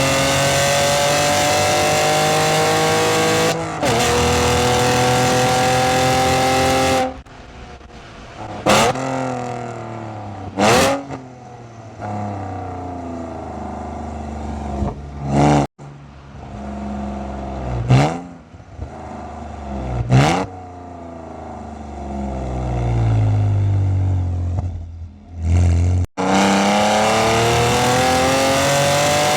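BMW E46 exhaust recorded with the microphone very close to the tailpipe. The engine accelerates with steadily rising pitch, with a brief dip at a gear change about four seconds in. It goes off throttle about seven seconds in, then gives about six short, sharp revs, and accelerates hard again near the end.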